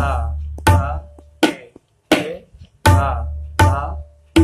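Tabla played slowly, a sharp stroke about every three quarters of a second. The dayan rings on each stroke, and most strokes also carry the sustained deep bass of the bayan, as in dha strokes, while two in the middle are struck without it. It is the first prastar (variation) of a qaida, played at a slow teaching tempo.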